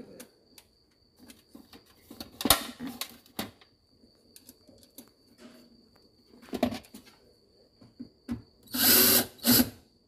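Hands working on a dishwasher's sheet-metal tub frame during reassembly: scattered clicks and knocks. Short, loud, noisy bursts come about two and a half seconds in, again near seven seconds, and twice close to the end.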